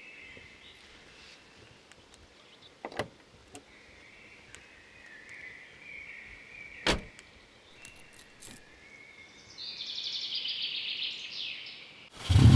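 A car door being handled, with a couple of knocks about three seconds in and one sharp shut near the middle, then a high rapid pulsing for a couple of seconds. Just before the end the 2002 Subaru WRX's turbocharged flat-four is started with the key and suddenly comes in loud.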